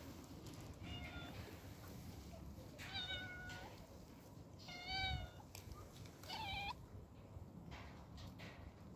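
Stray domestic cat meowing four times, about a second and a half apart, the first one faint.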